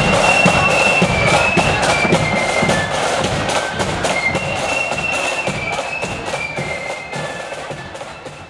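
Marching flute band playing a tune, high flute melody over snare and bass drums, steadily growing fainter as the band moves away.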